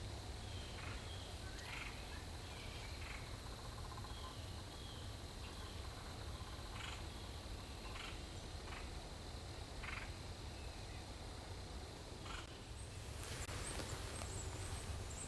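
Quiet woods with short, scattered animal calls, about ten brief chirps at irregular intervals, and a crackling rustle of leaves starting about thirteen seconds in.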